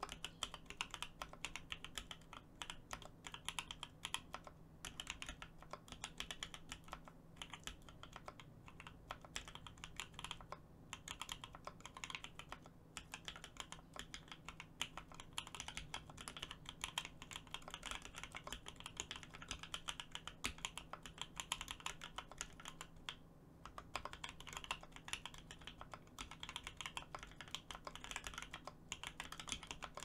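Continuous typing on a Meridian custom mechanical keyboard with lubed JWK H1 linear switches, an FR4 plate in a top mount and GMK ABS keycaps: a dense run of keystroke clacks with a few brief pauses.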